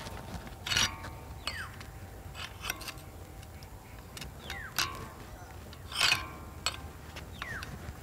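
Steel hatchet blade levered against a budget disc brake lock clamped on a motorcycle brake disc: a string of sharp metal clicks and clanks, the loudest about six seconds in, several followed by the steel disc ringing briefly.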